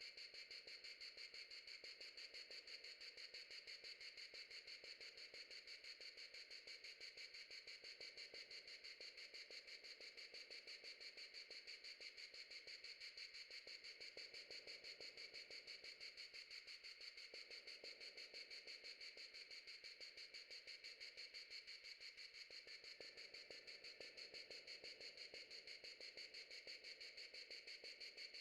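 Faint 'insect stopwatch' sound effect: a rapid, perfectly even ticking pulse with a high, cricket-like chirring tone, unchanging throughout.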